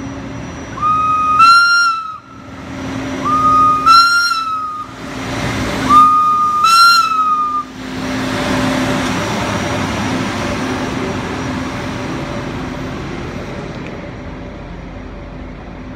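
Horn of a Stadler Hm 4/4 diesel rack railcar sounding three high-pitched blasts, each a little over a second long, with a slight upward bend near its end. After the third blast the railcar's diesel engine and roof cooling equipment run as it passes close below, a steady rushing noise over a low hum that slowly fades.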